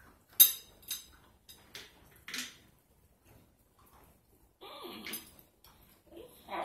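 Bubble gum being handled and chewed: a few sharp clicks and smacks in the first two and a half seconds, the loudest about half a second in, then muffled vocal sounds through a full mouth around five seconds in.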